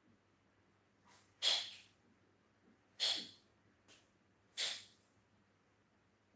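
Three short, sharp hissing puffs of air, about a second and a half apart, each with a softer lead-in.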